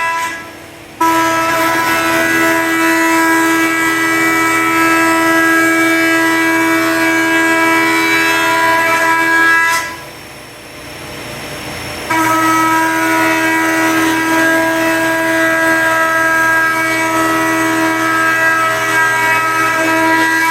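20-inch Grizzly planer with a helical cutterhead planing black walnut and epoxy resin: a loud, steady pitched whine cuts in abruptly about a second in, fades near ten seconds, and cuts in again about twelve seconds in, two passes under load with the machine running more quietly between them.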